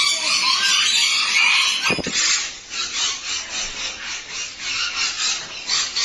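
Harsh, noisy parrot screeching for about two seconds, then after a sudden change a chorus of bird chirping that repeats about three times a second.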